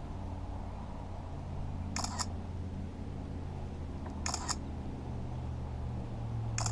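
Camera shutter sound clicking three times, about two seconds apart, each a quick double click, as photos of a caught bass are taken.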